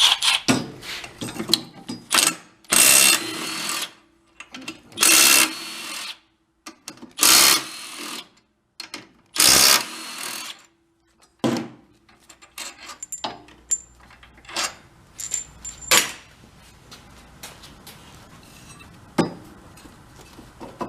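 Power driver spinning out the four bolts holding the cylinder head of a small four-stroke snowblower engine: four bursts of about a second each, then light clicks and clinks of metal parts handled near the end.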